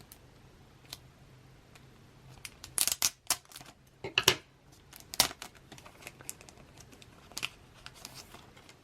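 Plastic packaging crinkling and rustling in short bursts, with scattered light clicks and taps, loudest about three and five seconds in, as a small item is unwrapped by hand.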